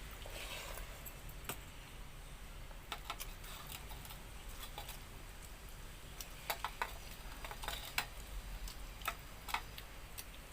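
A person eating by hand: scattered small wet clicks and smacks of chewing and handling food, more frequent in the second half, over a low steady hum.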